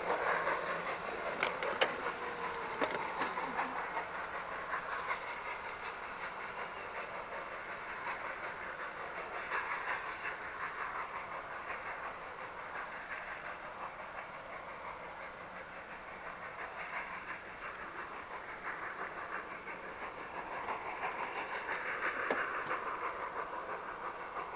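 Baldwin steam locomotive working hard as it pulls its train away, a mix of exhaust and wheel-on-rail noise with a few sharp clicks near the start, growing fainter as it draws off into the distance.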